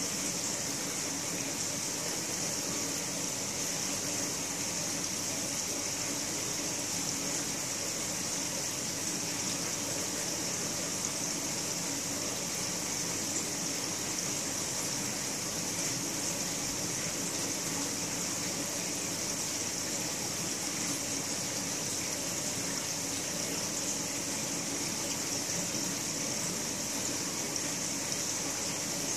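Aquarium filter running: a steady rush of moving water with a faint low hum beneath it.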